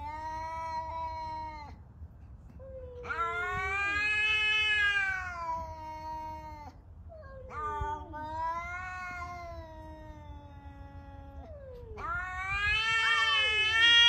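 Cats yowling at each other in a standoff, the drawn-out warning calls of a cat confrontation. There are four long yowls of three to four seconds each, every one rising and then falling in pitch, with the last the loudest.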